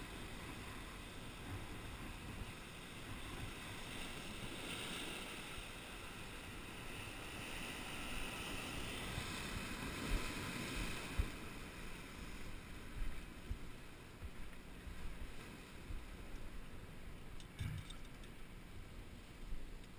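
Surf washing over sea rocks, with wind on the microphone, easing after about twelve seconds. It is followed by scattered sharp knocks and scuffs as a caught fish is handled on the rocks.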